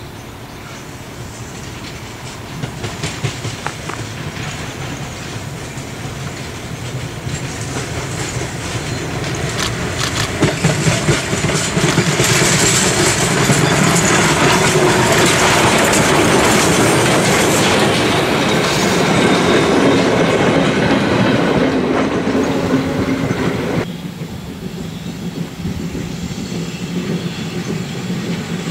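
Pt47 steam locomotive and its passenger coach approaching and passing close: a rumble with wheels clacking over rail joints grows to a loud peak. About four seconds before the end it drops suddenly to a quieter, more distant train sound.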